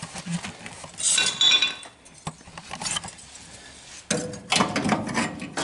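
Loose pieces of rusty sheet steel, freshly cut out of a truck's cab floor, clinking and scraping as they are picked up and handled, in a few short flurries with one sharp clink a little past two seconds in.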